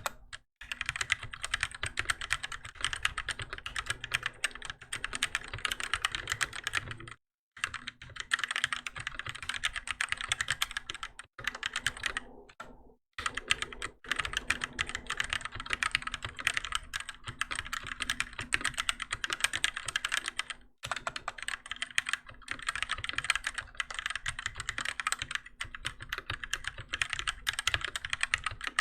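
Continuous fast typing on a Keychron K6 mechanical keyboard with Gateron Red linear switches: a dense clatter of keystrokes, broken by a few brief pauses.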